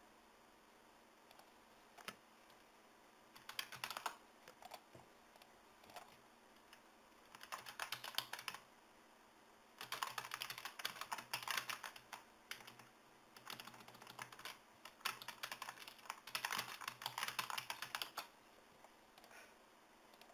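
Typing on a computer keyboard in five quick bursts of keystrokes, with a few single clicks between them.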